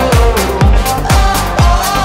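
Electronic dance music with a steady kick drum, about two beats a second, under a synth melody.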